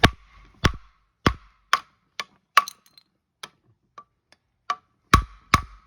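A Samsung washing machine's cast aluminium drum spider being tapped with a tool: a series of sharp, irregularly spaced knocks, each with a short metallic ring, with two of the loudest about five seconds in. The spider arm is already cracked through corrosion, so light taps are enough to break it.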